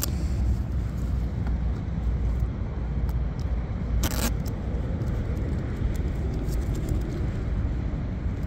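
Steady low outdoor rumble, with faint clicks and scrapes as a lightweight lasercut-plywood RC boat hull and its hatch are handled, and a brief rustle about four seconds in.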